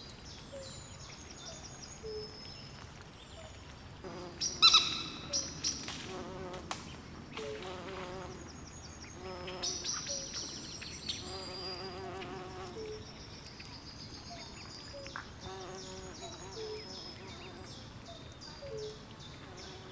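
Swamp chorus of frogs and insects: short repeated low frog calls and trills over steady high-pitched insect chirping. A louder call comes about four and a half seconds in.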